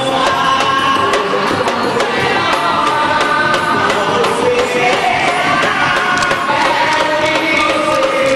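Festa junina music: singing over steady, evenly spaced percussion.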